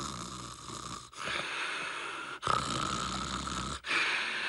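A sleeping boy snoring into a phone held to his ear: four long snoring breaths in a row, each a little over a second, with short breaks between them.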